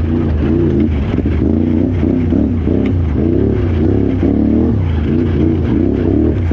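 Can-Am Renegade XXC 1000R ATV's V-twin engine revving up and down in quick repeated cycles, about twice a second, as the throttle is worked over rough ground, with scattered clicks and ticks from debris.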